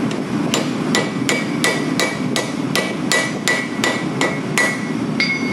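Hand hammer striking a white-hot, fluxed bundle of blister steel on an anvil in light, even blows, about three a second, each with a short ringing note: forge-welding the layers into shear steel. A steady low hum runs underneath.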